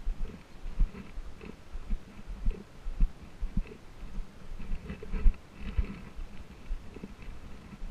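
Footsteps on a sandy dirt trail, with irregular low thumps and rustling from a carried camera jostling at each step.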